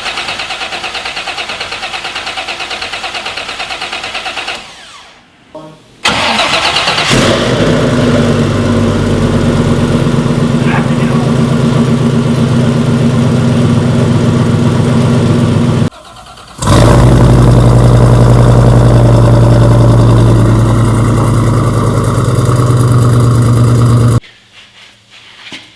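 Car engine cranking on the starter for about four seconds at its first start attempt, then, after a short break, running loudly and steadily. The running sound breaks off abruptly twice.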